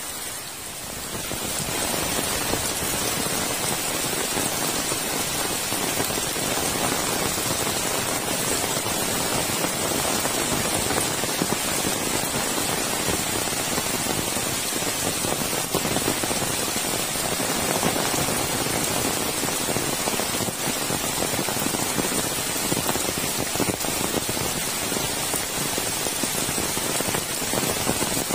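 Heavy rain pouring steadily, growing louder about a second and a half in.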